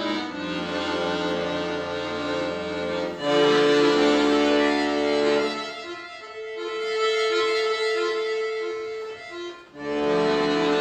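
Solo accordion playing slow, sustained music: held chords over low bass notes, then a single high held note with short repeated notes beneath it. The music breaks off briefly before a loud full chord near the end.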